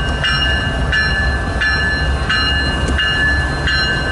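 Railroad crossing bell ringing steadily, a struck ding about every 0.7 seconds, over the low rumble of a CSX freight train rolling through the crossing.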